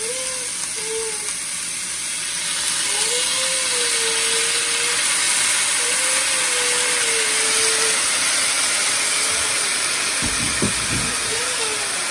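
Sliced green beans and pork sizzling in a hot nonstick wok, a steady frying hiss. About ten seconds in, a wooden spoon stirs and scrapes through the vegetables with a few soft knocks.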